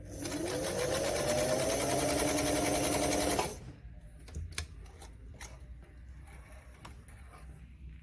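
Singer 348 sewing machine running fast for about three and a half seconds: its motor whine rises in pitch as it spins up, holds steady while stitching, then stops suddenly. A few light clicks and knocks follow.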